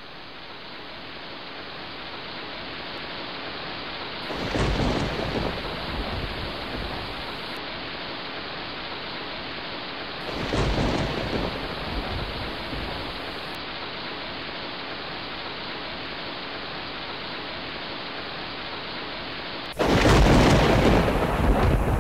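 Sea surf washing on the beach: a steady rush of water that swells as waves break about four and ten seconds in, then becomes abruptly louder near the end.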